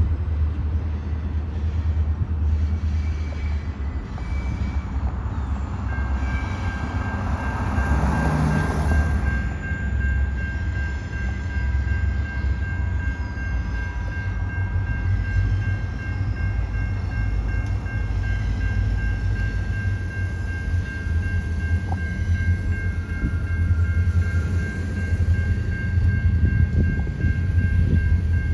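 Huron and Eastern Railway diesel locomotives hauling a freight train as they approach slowly, with a steady low engine rumble. A thin steady high-pitched tone joins in about six seconds in and continues.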